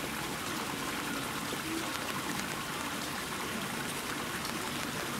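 Steady rain falling, an even hiss of water with no single sound standing out.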